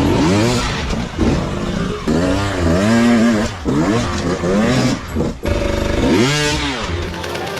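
Motocross dirt bike engine revving up and dropping back, again and again, its pitch rising and falling several times.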